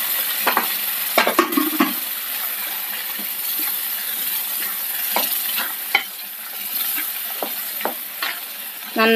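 Chickpea curry hissing and sizzling in a pan as cooked white chickpeas are stirred into the hot masala with a wooden spatula. Scattered knocks and scrapes of the spatula against the pan come in small clusters.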